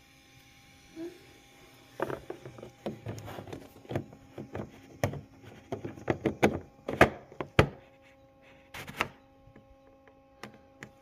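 A headlight's rubber-and-plastic dust cover being pushed and twisted into place on the back of the housing by hand: a run of irregular knocks, rubs and clicks, busiest from about two seconds in until near the end, over a faint steady hum.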